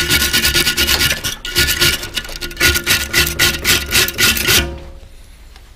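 Fast, rhythmic metal scraping strokes, about four or five a second, on a bicycle mudguard, which rings with a steady tone. There is a short break about a second and a half in, and the scraping stops suddenly near the end.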